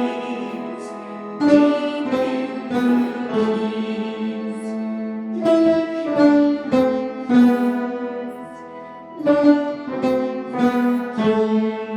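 Piano being played: a slow melody of separately struck notes over held lower notes, in phrases that swell and fade.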